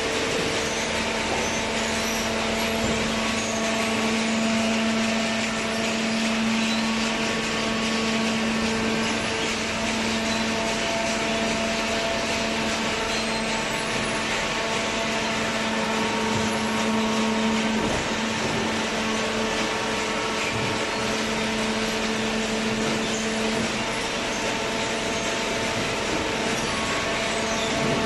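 Horizontal waste-paper baler running: a steady machine hum with a few held tones over a broad mechanical noise, the lowest tone dropping out near the end.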